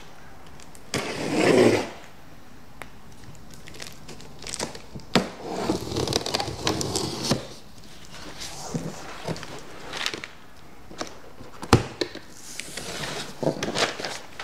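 Cardboard box being opened by hand: a utility knife cutting the packing tape, the cardboard flaps being pulled open and rustling, with a loud rasp about a second in and a few sharp knocks.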